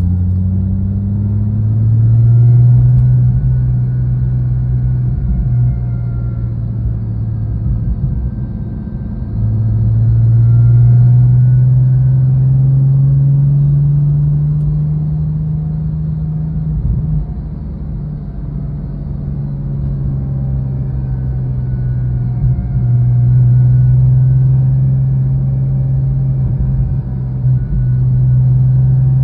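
Porsche 997.1 Turbo's twin-turbo flat-six running, its pitch rising and falling slowly a few times, with a whirring from the idler pulley below the A/C compressor: the pulley's bearing has gone bad.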